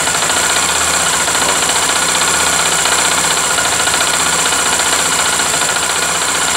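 Honda XRE 300 single-cylinder engine running steadily, heard close to the cylinder, with a knocking noise from inside the engine. The owner rules out the cylinder head and valves and suspects piston slap, a worn connecting rod, or loose starter clutch bolts.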